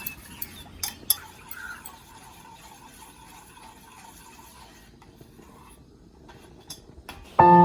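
Kitchen utensils clinking and tapping against dishes, a few sharp taps in the first second or so, then soft handling sounds. Near the end, music with sustained bell-like tones starts suddenly and is the loudest thing.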